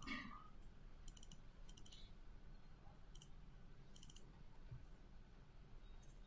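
Faint computer mouse clicks, several coming in quick pairs like double-clicks, over a low steady room hum.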